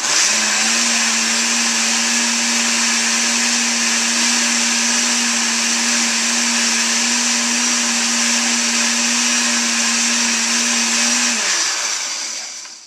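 Countertop blender with a glass jar switched on and running at a steady speed, blending a spinach smoothie with a couple of ice cubes in it. It starts suddenly, runs evenly for about eleven seconds, then is switched off and spins down near the end.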